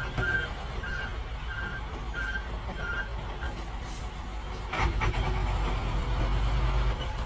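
A truck engine running with a low rumble that grows louder about five seconds in, after a short knock. Over the first half, a short high beep repeats about every two-thirds of a second and then stops.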